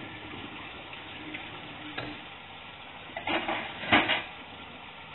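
Chicken pieces and onion sizzling steadily in a frying pan, with a light click about two seconds in and two louder clattering knocks of kitchenware a little past three seconds and near four seconds.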